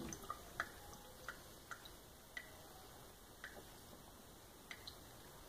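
Faint, irregular drips of water from a shut-off faucet falling into a stainless steel sink, a sharp little plink every half second to second or so.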